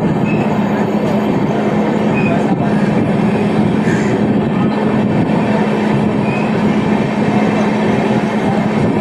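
Punjab Mail passenger train running along the track, a loud, steady rumble of the moving coaches with a constant low hum underneath.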